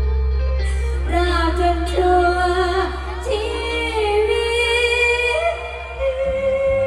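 A woman singing a Thai luk thung song over backing music, her melody bending and gliding over a steady held bass; the bass drops out briefly about six seconds in.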